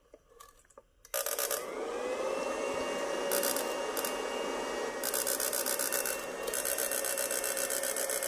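A Chinese Xiongying No. 8 electrofishing inverter switches on about a second in and runs with a loud electronic whine and buzz, its tones rising briefly before holding steady over a fast, even pulsing. It is driving two incandescent bulbs as a test load and running properly after repair.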